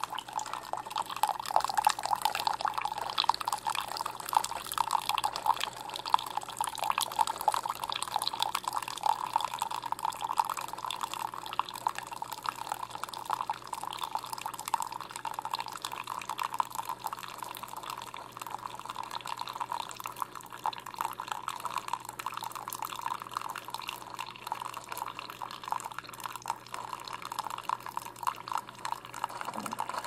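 A thin stream of coffee from a Keurig B140 commercial brewer pouring into a ceramic mug, a steady trickling splash as the cup fills during the brew.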